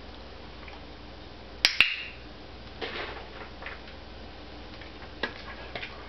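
A dog-training clicker clicks once, a sharp double click-clack with a brief high ring, about a second and a half in, marking the moment the dog touches the cabinet door. A few fainter short taps and knocks follow.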